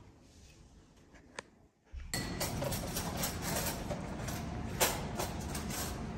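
A quiet room with a single sharp click, then from about two seconds in the steady background noise of a breakfast buffet room, with scattered clinks and clicks of glasses and dishes.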